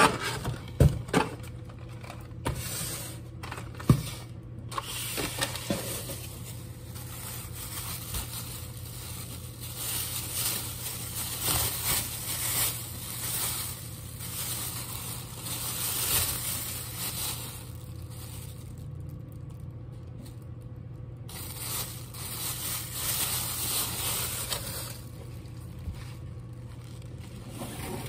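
Thin plastic produce bags crinkling and rustling as groceries are handled and unpacked, in bouts, with a few sharp knocks of plastic containers being set down in the first few seconds. A steady low hum runs underneath.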